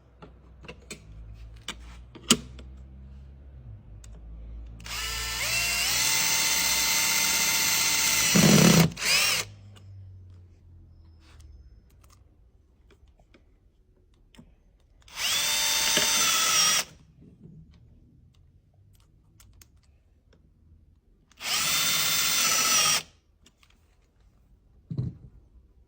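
Power drill run in three bursts, each spinning up to a steady whine: a longer run of about four seconds ending in a knock, then two shorter runs of about a second and a half. A few sharp clicks and knocks fall between the runs.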